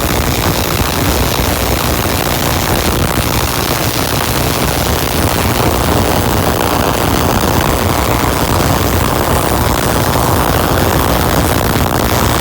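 Tesla coil running with blown air through its spark gap: a steady, loud rushing roar of air and sparking that grows slightly louder about halfway through.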